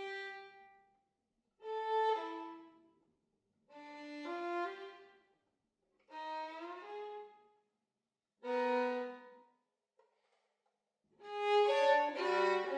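Solo violin playing short, halting phrases of a few notes each, broken off by silences, about six phrases in all; the last, near the end, is the loudest and fullest.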